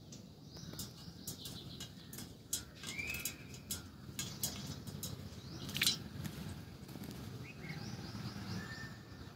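Pet parrot giving a few short chirps among scattered clicks and patters while it plays in running water, with a steady low rush underneath.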